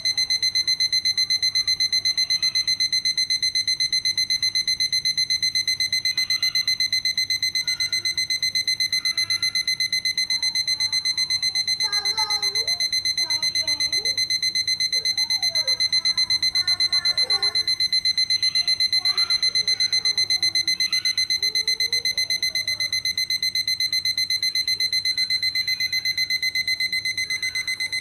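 Electronic alarm of a Citizen 4ML400 wall clock going off: one steady high-pitched beep, rapidly pulsed, repeating without a break.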